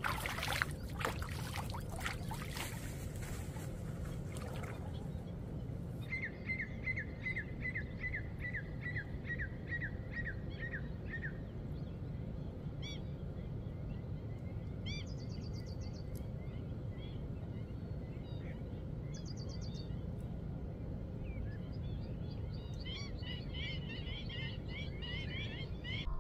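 Birds calling over a steady low rumble: one bird repeats a short chirp two or three times a second for about five seconds, then higher trills and chattering calls follow. In the first few seconds there is splashing and rustling as groundbait is scattered by hand into shallow water.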